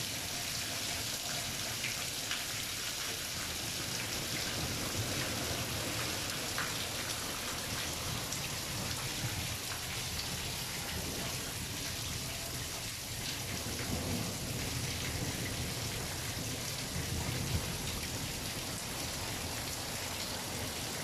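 Heavy rain pouring steadily, with water streaming down off a roof edge, and a low rumble of thunder in the storm.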